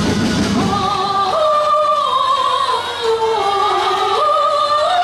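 Dance-performance music: a voice singing long held notes that step up and down in pitch, with the low accompaniment dropping away about a second in.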